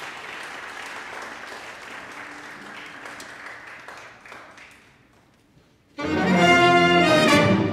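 Audience applause fading away over about four seconds, a short hush, then about six seconds in a symphony orchestra comes in suddenly and loudly, led by bowed strings.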